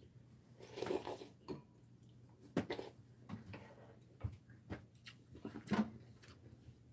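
Quiet mealtime sounds: chopsticks clicking against ceramic bowls and a plate, with scattered soft knocks and a few brief rustles.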